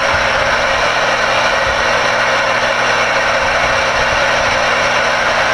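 Steady loud static hiss from the CRE 8900 ten-meter radio's speaker: the receiver is open on a busy channel once the mic is unkeyed.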